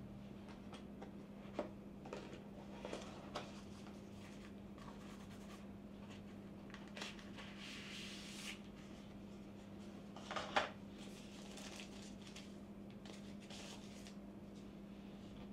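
Phone box packaging being handled: scattered light taps and knocks of cardboard inserts and trays, a short sliding rustle of packaging, and a sharper knock about ten seconds in, over a steady low hum.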